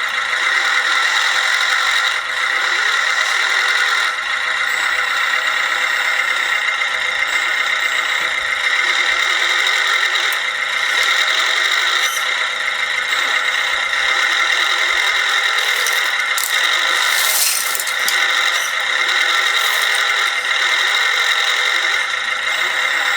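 1/14-scale radio-controlled construction machines working: a steady high whine of small motors with rattling and scraping, and a short hiss-like burst about 17 seconds in.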